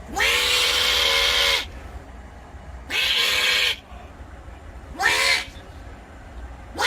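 An animal giving loud, harsh calls: a long one of about a second and a half, then two shorter ones about two seconds apart, and a fourth just starting at the end.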